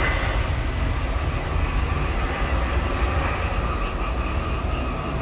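Airbus A320 jet airliner's engines at takeoff thrust as it lifts off and climbs away from a wet runway: a steady, loud jet roar with a deep rumble.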